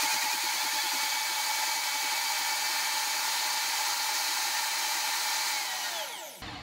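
High-performance blender running at full speed, mixing dates, cocoa powder and coconut milk into chocolate mousse. About six seconds in, the motor is switched off and spins down with a falling whine.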